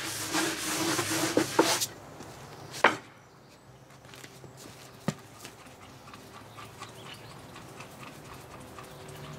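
A brush scrubbing cleaning product into an outboard motor cover, a rough rubbing that stops about two seconds in. A sharp knock follows near three seconds and a lighter click about two seconds later, then only faint small ticks.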